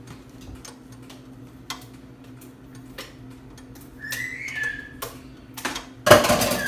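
Sharp clicks and light knocks as a knife is worked at a stubborn bottle's cap seal, with a brief high squeak about four seconds in and a loud rasping noise near the end.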